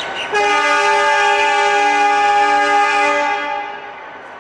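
Diesel locomotive air horn sounding one long blast of several tones together, starting about half a second in and lasting about three and a half seconds: the departure signal of the train leaving the station.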